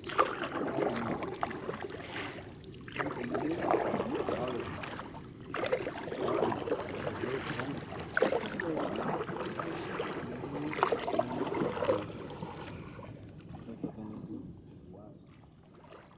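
A steady high-pitched insect drone over irregular splashing and knocking sounds of a boat on water, fading out over the last few seconds.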